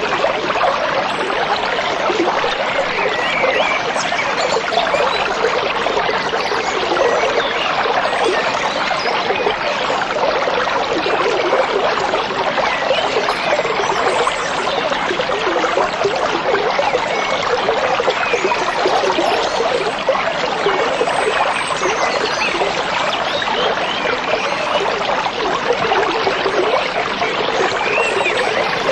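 Stream water babbling and trickling steadily over stones.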